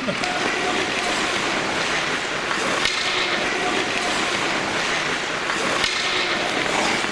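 Steady scraping wash of ice skates on a hockey rink, with two sharp knocks of sticks on pucks.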